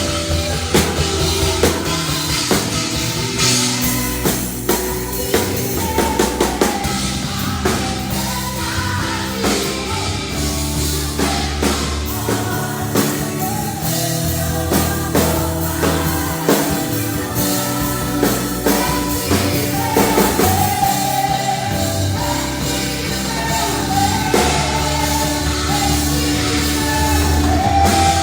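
Rock band playing: drum kit, bass and guitar with a singing voice over a steady beat.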